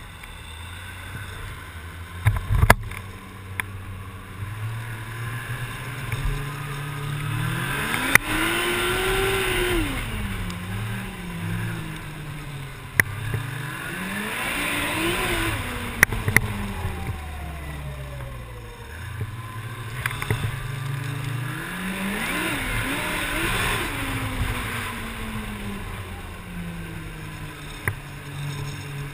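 Snowmobile engine pulling away and running across open snow, revving up and easing off three times so its pitch rises and falls, with wind rushing over the helmet-mounted microphone. A few sharp knocks sound, the loudest a couple of seconds in.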